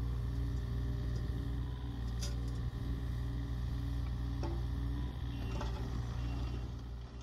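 Takeuchi TB230 mini excavator's Yanmar 1.6 L three-cylinder diesel running steadily while the arm and bucket are worked, with a steady high whine over the engine and a few light knocks. The sound begins to fade at the very end.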